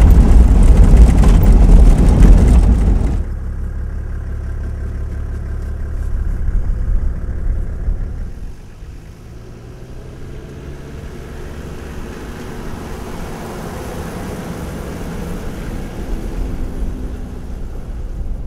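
A 4x4 driving on a rough dirt track. For about three seconds there is loud drive noise heard from on board the vehicle, then it drops suddenly to a quieter sound: a white Toyota Land Cruiser-type 4x4 with its engine humming as it approaches and drives past, slowly growing louder toward the end.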